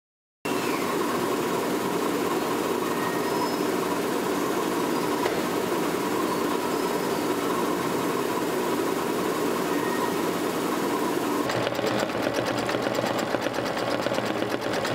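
Laser engraver running, a steady mechanical hum with a constant tone, starting about half a second in. About eleven seconds in it gives way to a sewing machine stitching fast into denim, a quick even rhythm of needle strokes.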